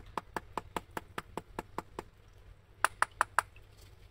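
Screwdriver tapping the metal body of a Honda NS250F carburetor: a run of light taps, about five a second, then four harder taps close together near the end. It is being tapped to free a float valve stuck open, which makes the carburetor overflow fuel.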